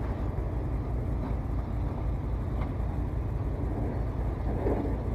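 Small boat's motor running steadily: a low, even hum.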